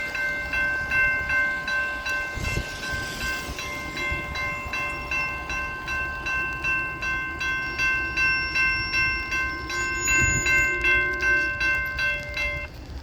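Railroad grade-crossing bell ringing fast, about two strikes a second, over the low rumble of a freight train. The bell stops shortly before the end.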